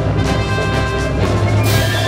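Orchestral background music with drums, loud and steady, brightening with a high wash near the end.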